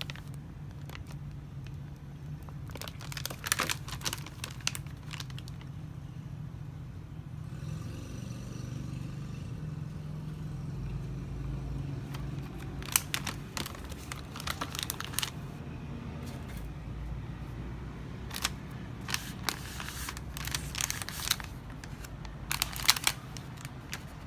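Chocolate bar wrapper crinkling and tearing in several separate handling bouts as the bar is unwrapped, over a steady low hum.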